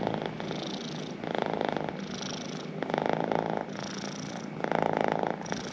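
Domestic cat purring continuously, the purr swelling louder and easing off in a slow regular cycle of about one and a half to two seconds, with three louder swells.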